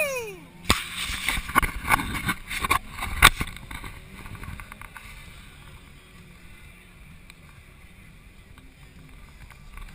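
Handling noise on an action camera: a quick run of knocks and rubs against the housing, then a faint steady hiss.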